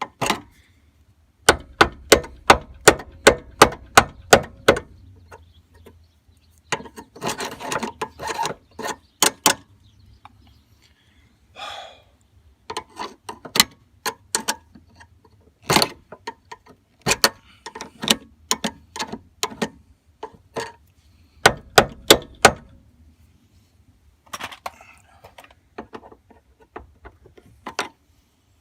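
Hammer blows on a stuck door hinge pin, struck in rapid bursts of several blows about three or four a second, with short pauses between the bursts.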